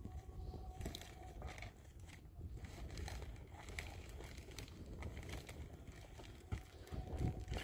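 Plastic sheeting rustling and crinkling as it is handled, with scattered knocks of stones being set down, over wind rumbling on the microphone.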